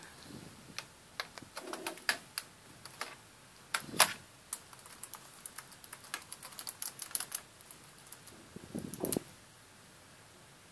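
Soft typing on a keyboard: a stream of irregular key clicks, one struck harder about four seconds in, busiest in the middle and stopping about nine seconds in.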